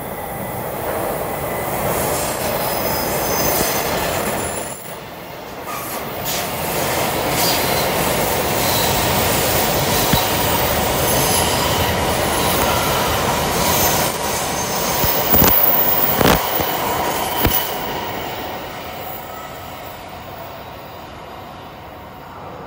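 Shinkansen trains passing one after another on the elevated viaduct overhead: a rising rush of wheels and running gear with thin high squealing tones. There is a brief lull about five seconds in, then a longer, louder pass with a few sharp clacks near its end before it fades away.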